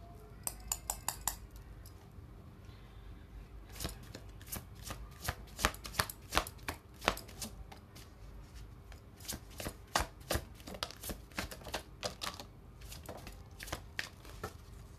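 Tarot cards being shuffled and handled: a quick run of card flicks about half a second in, then irregular flicks and taps through most of the rest.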